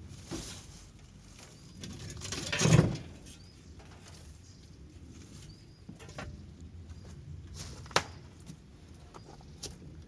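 Short, faint, high bird chirps repeating every second or two over light rustling and scattered clicks, with a louder rustle about two to three seconds in and one sharp click near eight seconds.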